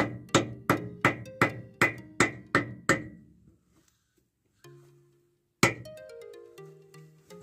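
Background music: a run of evenly spaced percussive hits, about three a second, for the first three seconds. After a short pause comes one strong hit, about five and a half seconds in, then a falling run of notes.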